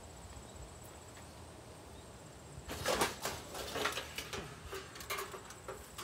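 A quick run of sharp clattering knocks and rattles from hard objects, starting about halfway through and loudest near the start of the run.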